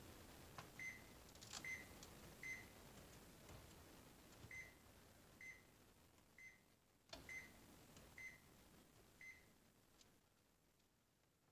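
Sub-Zero refrigerator control panel beeping faintly as its Colder key is pressed again and again to step through configuration codes: about nine short, high beeps, roughly a second apart, with a few soft clicks.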